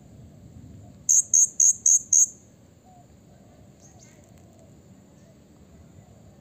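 Male blue-crowned hanging parrot (serindit) giving five loud, sharp, very high-pitched call notes in quick succession, about four a second, starting about a second in. A fainter call follows near the middle.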